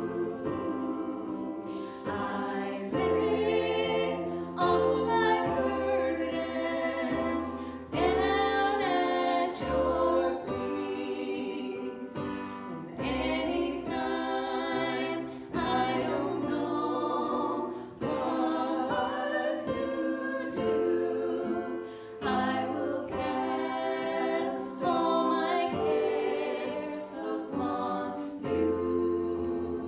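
Music with singing: a worship song sung by voices over an instrumental backing with steady low bass notes.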